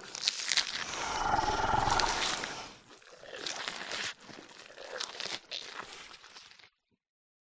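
Brontosaurus roar sound effect: one drawn-out rough call lasting about two and a half seconds, then a few shorter, quieter rasping sounds, fading out near the end.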